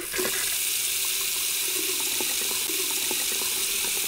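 Water running and splashing in a steady rush, with small splashes scattered through it.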